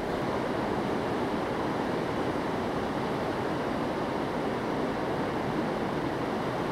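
Steady rushing of a fast-flowing river, an even wash of water noise with no breaks.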